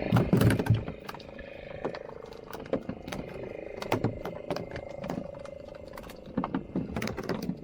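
Boat engine running steadily under a string of irregular knocks and thumps. The knocks come thickest in the first second and again near the end.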